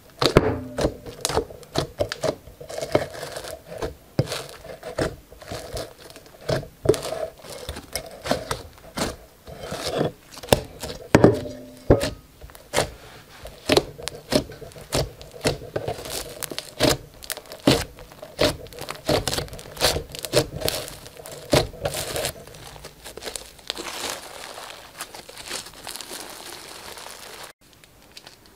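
Slime mixed with tiny coloured beads being poked, squeezed and kneaded by hand, giving dense, irregular crackles and sharp pops. The crackling goes softer about three quarters of the way through and cuts off suddenly near the end.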